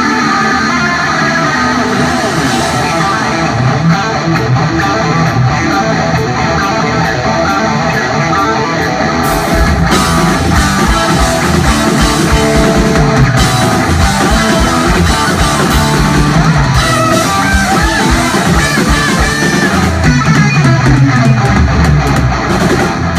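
Live instrumental rock from an electric guitar, bass guitar and drum kit trio, the electric guitar leading. The drums fill out with cymbals and a steady kick drum about nine seconds in.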